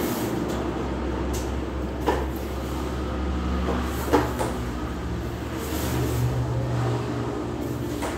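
A steady low hum that swells for a second or two near the end, with a few sharp clicks or knocks, about two seconds in and twice about four seconds in.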